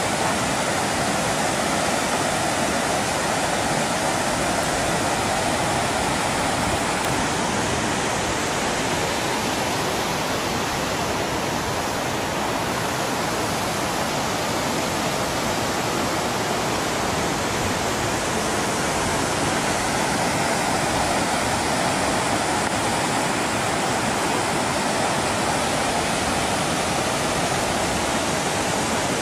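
Water pouring over rock in small waterfalls and cascades, a steady rushing noise.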